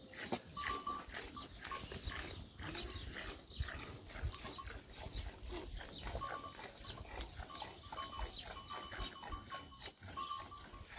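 Small livestock bleating, amid many small knocks and clatters. A short ringing tone at one pitch comes back every second or two.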